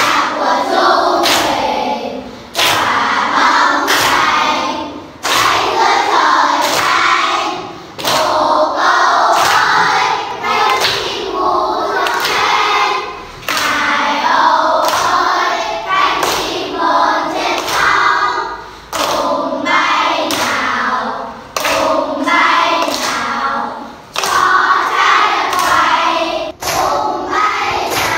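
A class of young schoolchildren singing a song together in unison, clapping their hands in time with sharp, regular claps.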